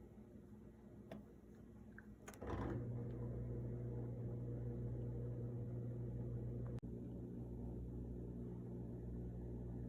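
A click, then a dishwasher's motor starting up and running with a steady electric hum, briefly dropping out with a click partway through.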